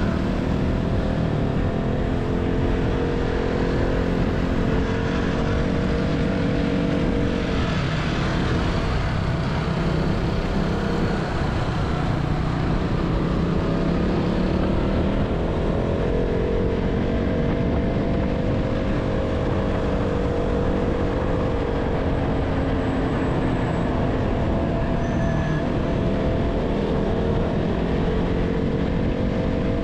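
KTM Duke 200 single-cylinder motorcycle engine running on the road, its pitch rising and falling with the throttle and changes of speed, under steady wind and road rush.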